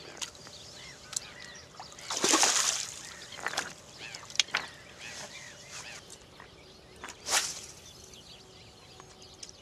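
A splash of water about two seconds in as a freshly caught asp is let go back into the lake, with a shorter rush of noise about seven seconds in. Waterfowl call in the background throughout, with a few light clicks.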